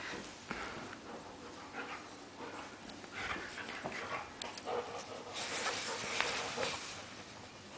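Dog panting in breathy spells.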